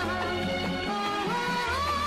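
Classic Tamil film song music: a gliding melody line over a steady rhythmic accompaniment.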